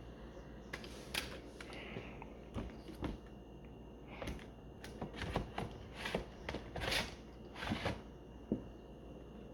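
A series of light, irregular clicks and taps from laptop parts being handled and fitted during reassembly.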